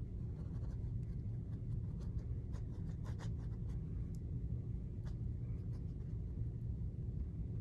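Paintbrush working paint on canvas and palette: faint scratchy brush strokes and a few light taps, most of them around two to three seconds in and again near five seconds, over a steady low hum.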